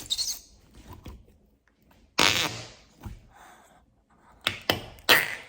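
Flarf noise putty being pressed and squished, making squelchy fart noises: one long loud one about two seconds in, then a quick run of shorter ones near the end.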